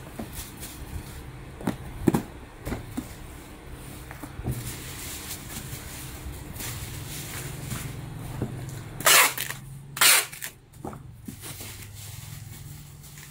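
Bubble wrap rustling and crinkling as it is folded by hand around a boxed kettle, with light handling clicks and two short, loud crinkling rasps about nine and ten seconds in.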